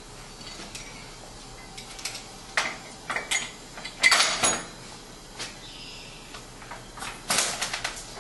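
Metal clanking and rattling from the clamp rack's hardware being handled. It comes in several short clusters of clanks, the loudest about halfway through.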